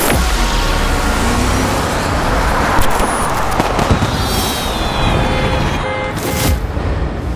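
Fireworks banging and crackling, with one sharp loud bang about three seconds in, giving way to busy city-street traffic noise near the end, all over a steady low rumble.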